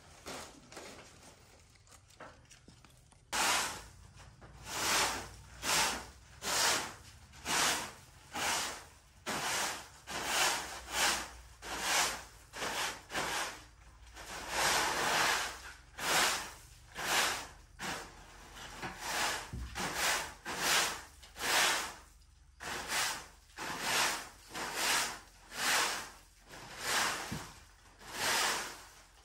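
Steady run of rasping scraping strokes, about one a second, beginning about three seconds in, with a brief pause a little before the end.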